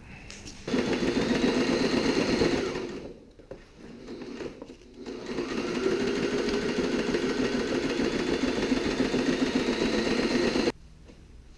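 Sewing machine stitching a seam through sailcloth. It runs in two stretches: about two seconds from just under a second in, then after a short pause it picks up speed and runs steadily for about five seconds before stopping suddenly.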